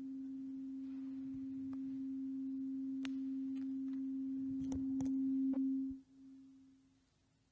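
A single steady pure tone, growing slightly louder, then cut off suddenly about five and a half seconds in, with a few faint clicks around it.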